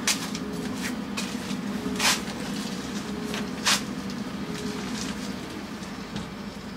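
A few sharp clicks and knocks over a steady low hum. The loudest clicks come just at the start, about two seconds in and about three and a half seconds in.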